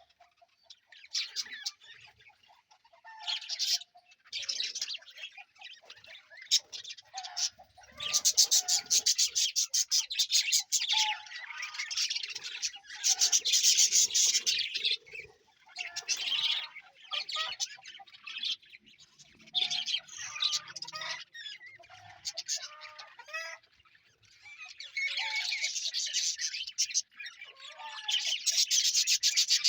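A small flock of budgerigars chirping and chattering together, in busy bouts of a few seconds broken by short lulls, with rapid clicking trills among the calls.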